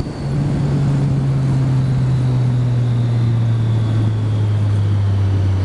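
Triumph motorcycle engine running as the rider eases off, its note falling slowly and steadily over several seconds, with wind rush over it.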